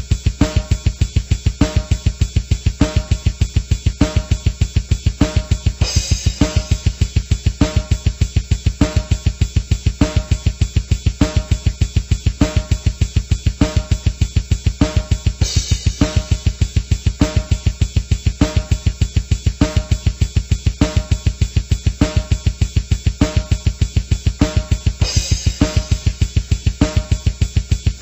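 Background music with a steady drum-kit beat, bass drum and hi-hat, and a cymbal crash three times.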